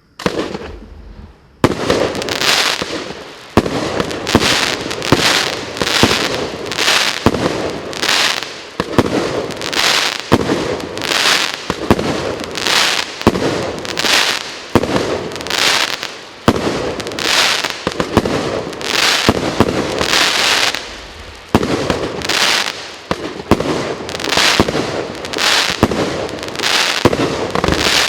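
A 25-shot 30 mm firework cake firing shot after shot, more than one a second. Each shot is a sharp launch thump followed by the hiss and crackle of its bursting effects. It starts firing about a second and a half in.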